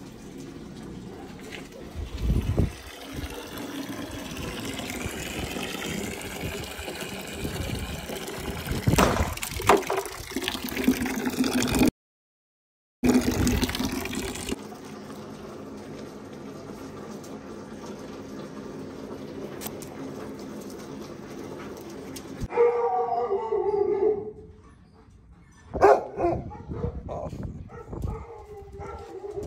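A thin stream of water pouring steadily into a plastic bowl, then a dog whining in a few pitched calls, with short sharp yelps near the end.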